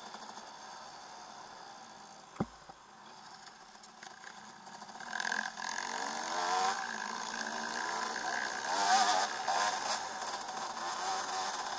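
Single-cylinder two-stroke engine of a 2008 KTM 300 EXC enduro bike, first running softly off the throttle as the bike slows, then revving up and down as the rider accelerates from about five seconds in. A single sharp click about two and a half seconds in.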